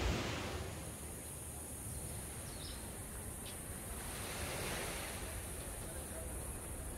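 Ocean surf washing ashore in swells, one peaking at the start and another about five seconds in, over a steady high-pitched hiss.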